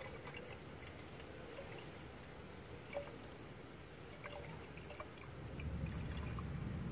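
Antifreeze coolant poured from a jug into a BMW's coolant expansion tank, a faint steady trickle with a few small blips, topping the coolant up until the level float rises. A low rumble comes up near the end.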